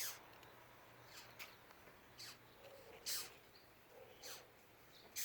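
An insect making short, sharp squeaks, each falling quickly in pitch, about one a second and uneven in loudness.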